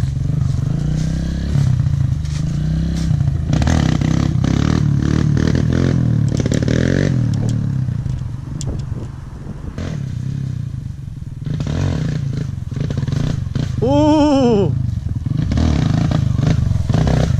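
Two-stroke Kawasaki dirt bike engine running and revving up and down as the bike rides away and comes back, quieter in the middle and louder again near the end. Near the end there is a brief loud tone that rises and falls in pitch.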